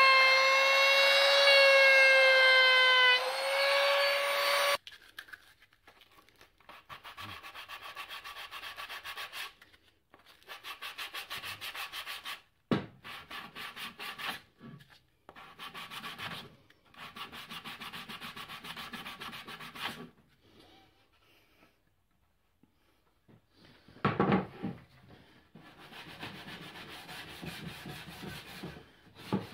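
A handheld electric router runs at a high, steady whine, dipping slightly once, and cuts off suddenly about five seconds in. Then a sanding block is rubbed quickly back and forth over the plywood in runs of strokes with pauses between, with a couple of knocks along the way.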